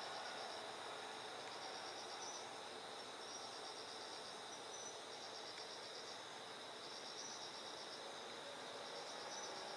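Night insects chirping outdoors: pulsed trills about a second long repeat every couple of seconds over a steady high-pitched insect drone.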